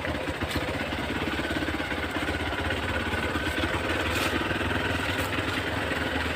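Hero XPulse 200's single-cylinder four-stroke engine running at low, steady revs.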